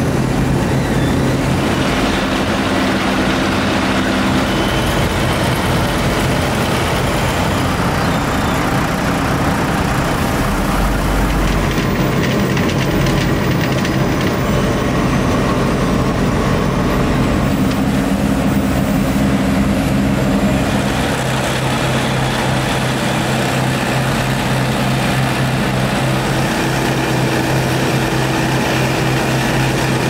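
Diesel engines of asphalt-paving machinery running steadily under load: a constant low engine drone, with a higher tone joining in for a few seconds twice.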